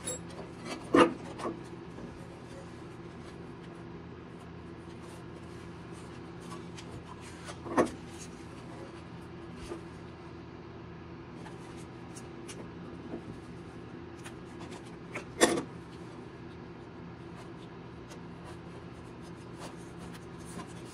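Foam tape being handled, peeled and pressed into a painted heater-core housing: soft rubbing with many small ticks. Three sharp clicks or knocks come about one, eight and fifteen seconds in, over a steady low hum.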